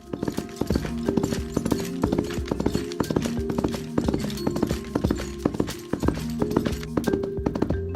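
Music with steady pitched notes, over a fast, continuous clip-clop of hooves made of many sharp knocks.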